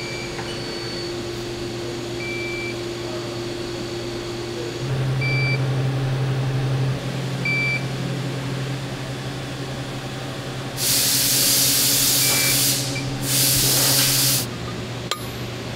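Mitutoyo MiSTAR 555 coordinate measuring machine running with a steady hum as its Renishaw touch probe works over an aluminium fixture plate. Five short electronic beeps are heard through it, and a hum tone steps up about five seconds in and drops back near the end. Two loud bursts of hiss come about eleven and thirteen seconds in.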